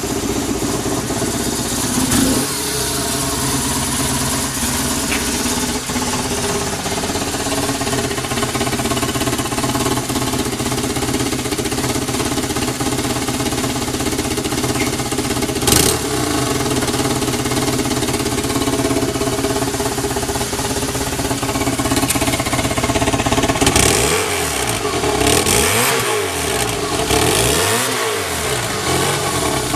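1995 BMW R1100R's 1085 cc air/oil-cooled boxer twin idling steadily with no unusual noises, then revved up and back down twice near the end.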